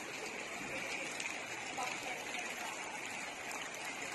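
Steady rushing of floodwater, an even wash of water noise with no distinct events.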